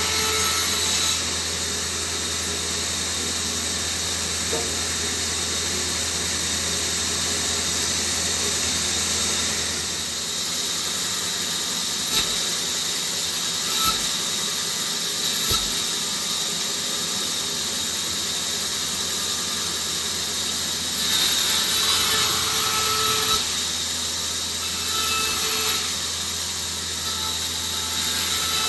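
Bandsaw running steadily while the blade rips lengthwise through bark-covered branches, the cut growing louder at times as the blade takes the wood. A few short knocks come about halfway through.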